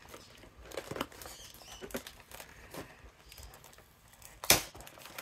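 Sheets of patterned paper and cardstock handled on a cutting mat: soft rustles and light taps, with one sharper tap about four and a half seconds in.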